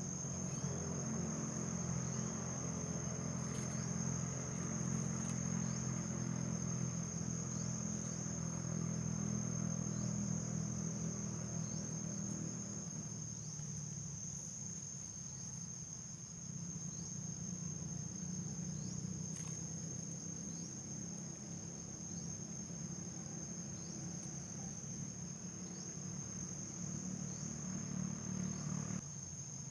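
Insects chirring in a steady, high-pitched drone, with faint short chirps recurring every second or two. A low rumble runs underneath, louder in the first half.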